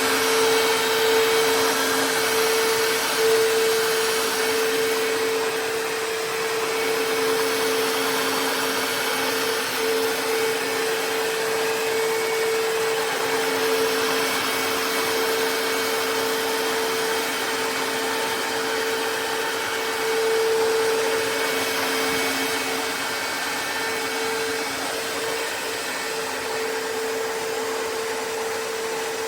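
Tineco Floor ONE S5 Steam wet-dry floor vacuum running steadily: a continuous motor and suction drone with a steady mid-pitched hum.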